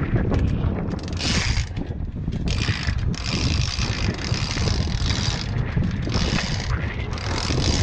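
A sailboat's halyard rope being hauled hand over hand, running through its blocks in a series of rasping bursts, one for each pull. Wind rumbles on the microphone throughout.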